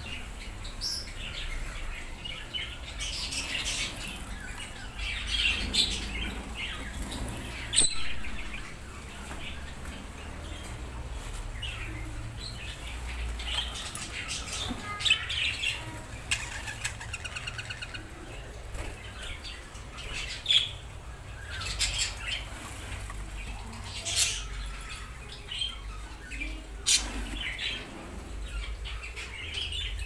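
Caged budgerigars chirping and chattering in short, scattered calls, with wing flutters and several sharp clicks.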